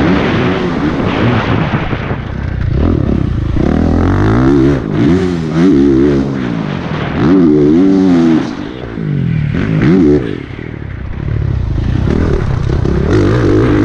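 Honda CRF450RX's single-cylinder four-stroke engine revving hard and backing off over and over as the throttle is worked around a motocross track. The pitch rises and falls several times, about once every one to two seconds, with short drops in loudness where the throttle is shut off.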